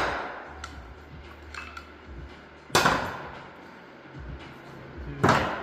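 Metal-on-metal clanks from differential parts and tools being handled: two loud sharp clanks about two and a half seconds apart, each ringing briefly, with a few light clicks between.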